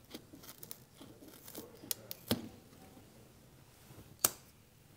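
Scissors cutting through a nylon Velcro strap: a run of short snips and crunches over the first two and a half seconds. A single sharp click comes about four seconds in.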